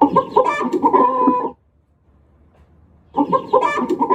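Chicken clucking: two runs of quick, short clucks, each about a second and a half long, with a pause between. The second run starts about three seconds in.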